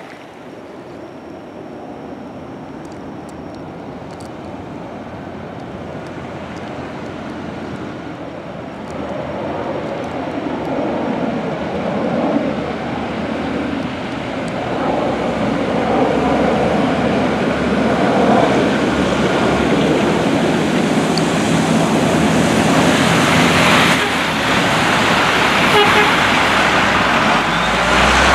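A dump-truck snow plow approaching and passing, its engine running and its lowered plow blade scraping the snowy road. The sound grows steadily louder and is loudest near the end as the truck goes by.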